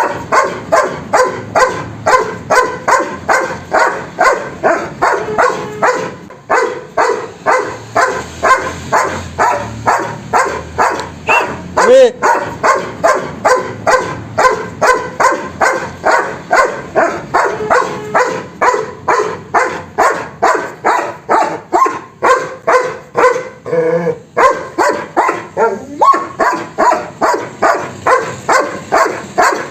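A dog barking in a fast, steady run, about two to three barks a second, with a short lull about six seconds in.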